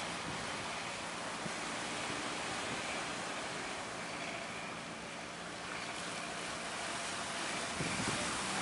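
Strong wind and sea waves rushing around a fishing boat under way, with the boat's engine running faintly and steadily underneath, a little plainer near the end.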